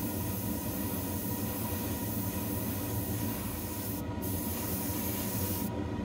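Spray paint hissing steadily onto a small model part, with a brief break about four seconds in and stopping near the end, over the steady hum of a spray booth's extraction fan.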